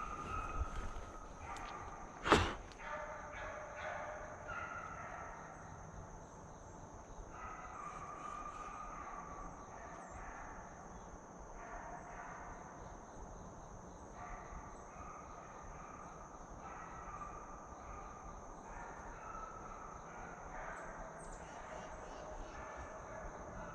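A single sharp gunshot about two seconds in, over a steady high-pitched insect drone.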